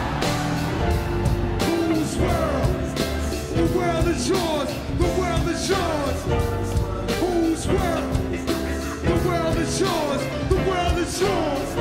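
Live band playing a hip-hop track on stage, with drums, bass and keyboards and a voice over the music. Short falling slides in the melody come back about once a second.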